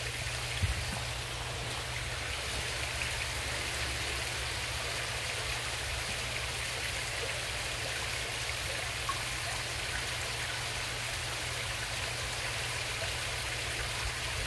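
Steady splashing of falling water from a koi pond's water features and filtration, like a light rain, with a low steady hum underneath.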